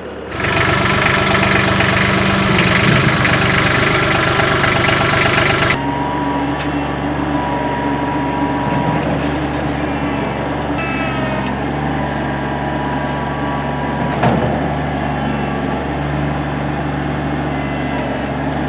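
Compact loader engine running, loud with a strong hiss. About six seconds in the sound switches abruptly to a steadier, quieter engine note, with a single knock later on.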